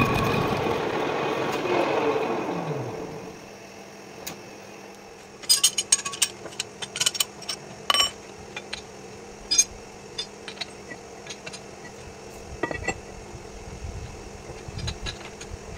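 Metal lathe running under a facing cut, then switched off and winding down, its pitch falling until it stops about three seconds in. After that come scattered metal clinks and knocks as a steel plate is handled against the lathe's four-jaw chuck.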